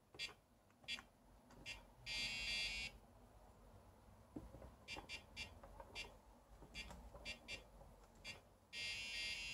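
SciSys Chess Champion Mark V chess computer being keyed in: short clicks as its buttons are pressed, and its buzzer sounding two steady beeps of just under a second each, one about two seconds in and one near the end.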